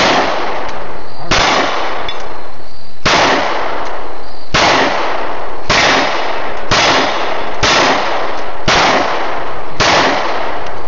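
Semi-automatic pistol firing a slow string of about nine shots, roughly one a second, each shot loud and leaving a long decaying tail.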